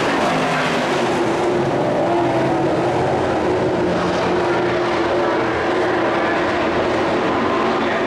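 Race truck engines running hard as several trucks lap a dirt track, a steady, loud drone of overlapping engine notes that rise and fall slightly.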